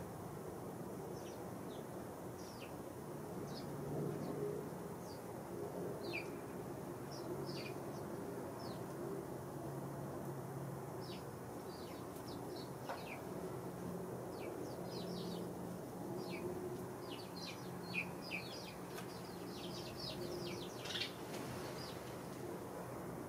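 A flock of house sparrows chirping: scattered short, high chirps, sparse at first and growing busier in the second half, over a steady low hum.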